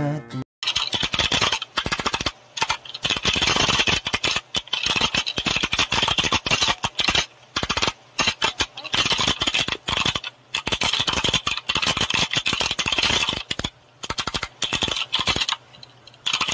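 Fast, continuous clatter of keys being hammered on a keyboard, a dense stream of clicks and rattles with brief breaks, starting just after a short silence near the start.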